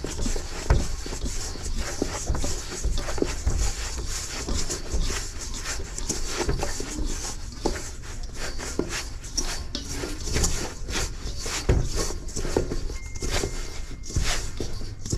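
Pizza dough being mixed by hand in a bowl, with a continuous run of irregular short wet slaps and squishes as the freshly added yeast is worked in.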